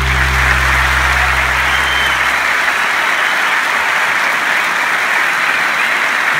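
Concert audience applauding at the end of a song, while the band's last held low chord dies away about two seconds in.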